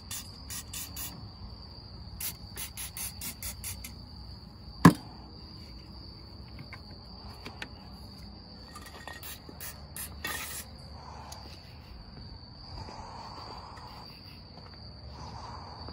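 Crickets chirping steadily in the background, with scattered bursts of short clicks and one sharp knock about five seconds in, the loudest sound. A brief hiss comes around two-thirds of the way through.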